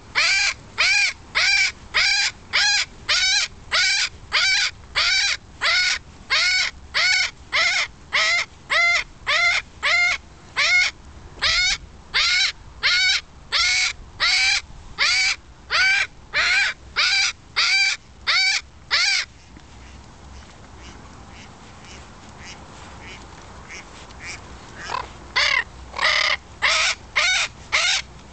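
Amazon parrot screaming one loud call over and over, about two calls a second. The calls break off for about six seconds about two-thirds of the way in, then start again.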